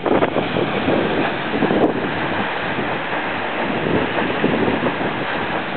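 Latourell Falls plunging into its pool: a loud, steady rush of falling water, with wind and spray buffeting the microphone in short gusts near the start.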